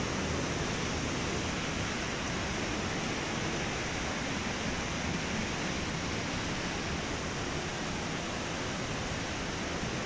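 Fast mountain river rushing through a narrow rock gorge: a steady, even rush of water with no break.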